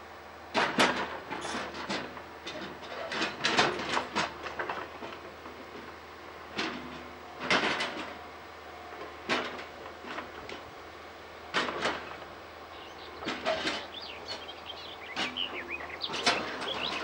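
Rail vehicle running on old track: a string of sharp metallic clanks and screeches from wheels on rails, about one every second or two, with a wavering high wheel squeal about thirteen seconds in.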